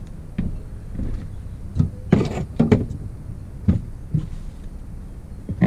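Irregular knocks and clunks of metal engine parts being worked and handled during an engine teardown, about eight in all, the loudest two seconds and three seconds in.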